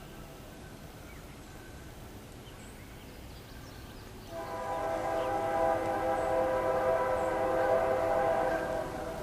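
Diesel locomotive air horn on the lead BNSF locomotive of an approaching empty coal train: one long, steady blast of a multi-note chord that starts about four seconds in and lasts about five seconds.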